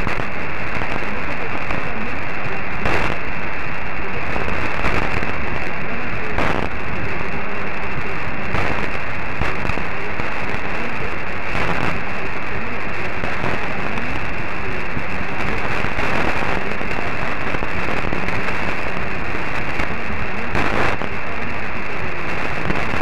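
Distant AM medium-wave broadcast on 954 kHz received through a software-defined radio, heard as a steady hiss of noise and crackling static, narrow and muffled by the AM filter. A faint voice is buried in the noise, and sharp static crashes break through every few seconds.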